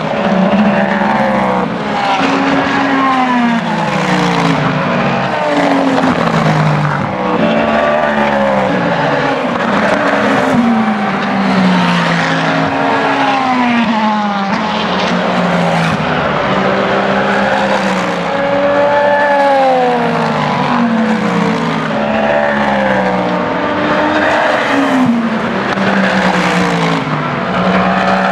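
Race cars at speed one after another, their engine notes overlapping and falling in pitch again and again as each car goes by.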